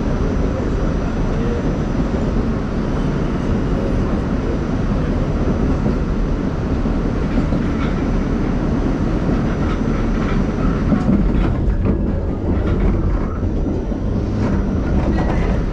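New York City subway train running on outdoor track, heard from inside the car: a steady rumble of wheels on the rails with clicks as they pass over rail joints.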